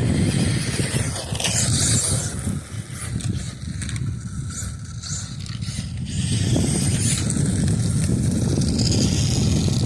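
Radio-controlled car driving over loamy dirt and dead grass, its tyres making a continuous rough rumble, with short spells of hiss about two seconds in and again near seven seconds.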